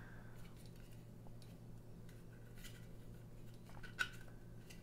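Faint small clicks from a plastic battery-pack case of a handheld CB radio being handled and fiddled with, with one sharper click about four seconds in, over a low steady room hum.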